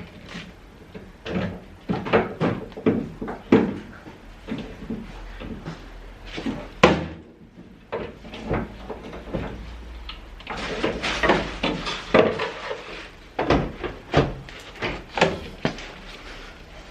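Repeated knocks and clunks of tools and suspension parts being handled during strut and air-bag work, uneven in loudness, with a sharp click about seven seconds in.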